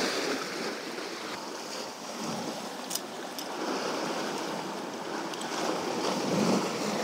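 Sea surf washing against shore rocks in a steady rush, swelling a little near the end, with a couple of faint sharp clicks about halfway through.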